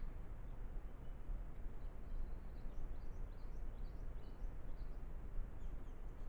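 Steady low background noise from a trail camera's microphone in the bush, with a small bird's faint, high chirps: a run of short falling notes through the middle and a few more near the end.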